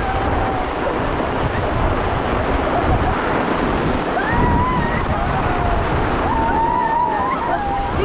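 Steady, loud rush of water noise, with people's voices calling faintly over it.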